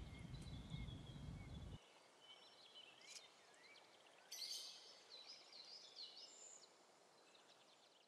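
Faint birds chirping and whistling, with short gliding calls. A low background rumble underneath cuts off suddenly about two seconds in.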